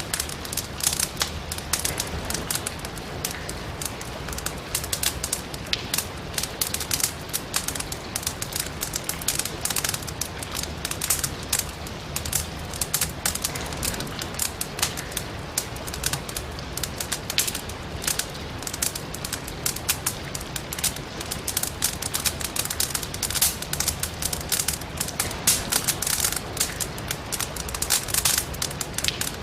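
Firewood burning in a fireplace, crackling with frequent irregular sharp pops and snaps over a steady hiss of rain.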